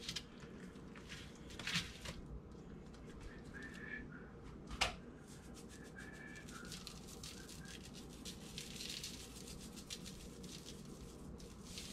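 Faint shaking of a plastic seasoning shaker, the seasoning pattering onto a raw beef roast, with light clicks and one sharper click about five seconds in.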